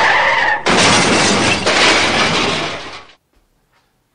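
Car crash sound effect: tyres screeching, breaking off about half a second in into a long crash with shattering glass that dies away about three seconds in.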